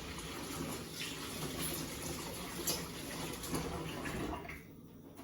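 Kitchen tap running into a sink, turned off about four seconds in.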